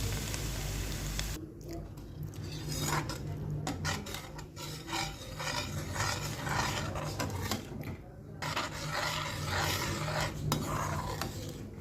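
A spoon or spatula stirring and scraping in a cooking pan: repeated rubbing strokes over about ten seconds, with a few pauses. It follows a steady hiss in the first second and a half.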